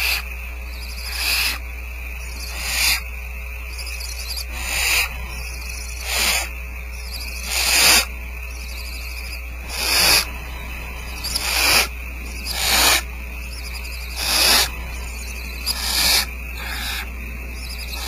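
Barn owl nestlings giving their rasping, hiss-like food-begging calls, one about every one and a half seconds, over a steady low electrical hum.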